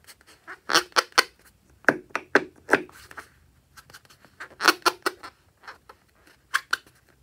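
Rubber balloon squeaking as fingers grip and rub its surface: short, irregular squeaks in several clusters.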